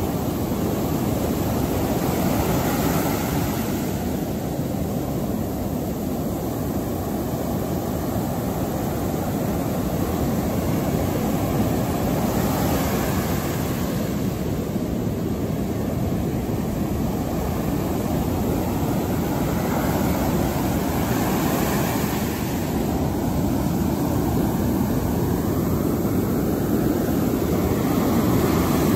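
Ocean surf breaking and washing up over the sand: a steady low rush, with the hiss of the wash swelling and fading every several seconds.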